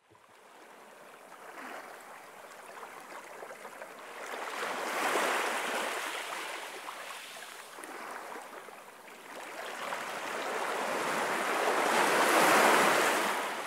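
Sea waves washing in on a shore: a hiss of surf that swells and falls back twice, the second swell louder, near the end.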